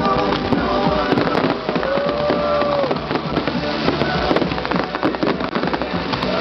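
Fireworks crackling and popping densely: a rapid stream of small cracks.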